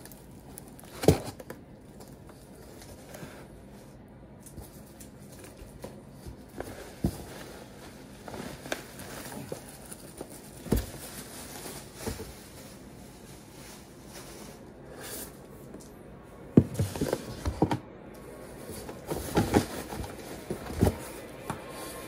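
Cardboard shipping box being opened and unpacked by hand: flaps and cardboard rustling and scraping, with boxed model airplanes knocked against the box and set down. A sharp knock comes about a second in, and a cluster of knocks comes near the end.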